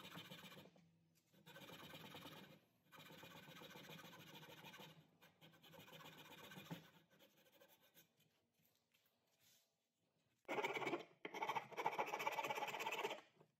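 Utility knife blade shaving a locust-wood hammer handle: a series of scraping strokes with short pauses between them, faint for most of the stretch, with two loud, long strokes near the end.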